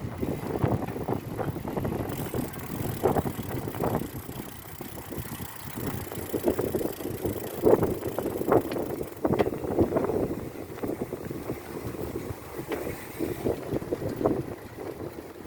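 Wind buffeting the microphone while riding a bicycle, an uneven gusting rumble that surges and eases every second or so.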